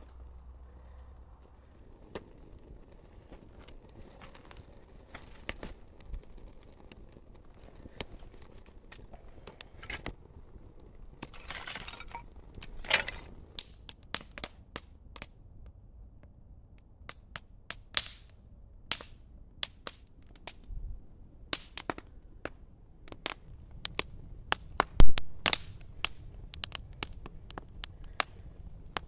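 Wood fire of kindling and split logs crackling as it catches and burns up, with irregular sharp pops and snaps, a few much louder than the rest.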